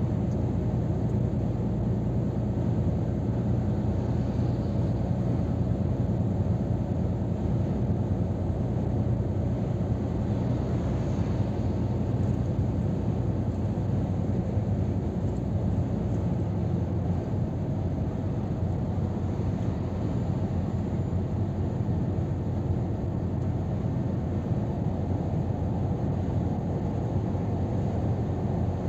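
Scania R500 truck cruising at motorway speed, heard from inside the cab: a steady low engine drone with tyre and road noise, unchanging throughout.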